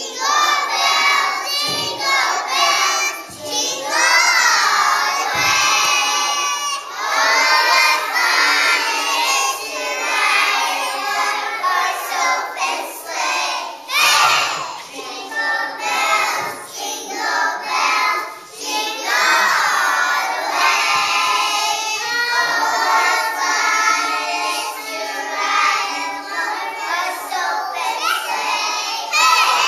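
A group of small children singing a song together, loud and without pause.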